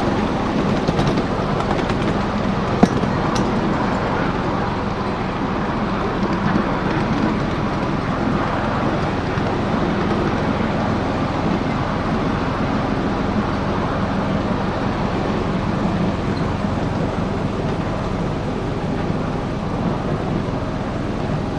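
Ride-on miniature train running along its track: a steady rumble and rattle of the wheels and open wooden passenger cars, with one sharp click about three seconds in.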